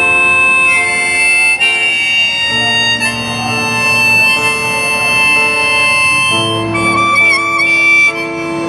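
Harmonica playing a melody of held notes over strummed acoustic guitar, with a wavering note near the end.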